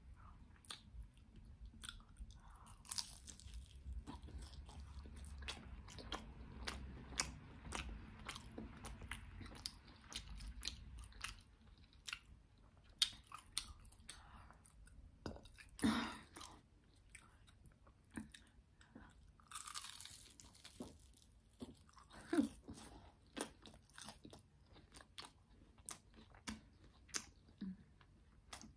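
Close-miked chewing of a crunchy fried roll: irregular crisp crunches and wet mouth clicks.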